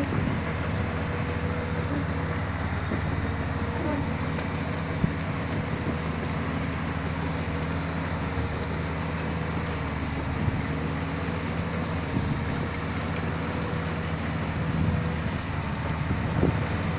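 Excavator diesel engine running steadily at an even speed, with a few faint knocks.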